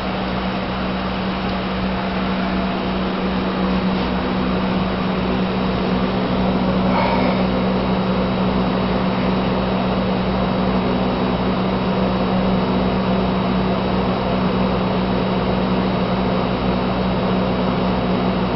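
Aquarium air pump humming steadily, with a constant rush of bubbles streaming from the air tubing through the water. A brief faint high tone sounds about seven seconds in.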